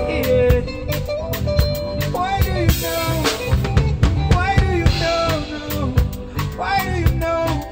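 Live band music: a drum kit keeping a steady beat, with electric guitar, keyboard and a male singer.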